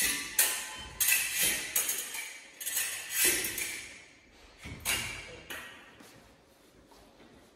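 Steel fencing foil blades clashing: a run of sharp metallic clinks with a brief ring, in quick irregular groups, thinning out and stopping after about five and a half seconds.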